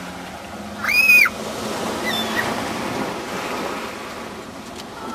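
Small waves breaking and washing up the beach in a steady rush. About a second in, a child lets out one short, high-pitched squeal that rises and falls, louder than the surf.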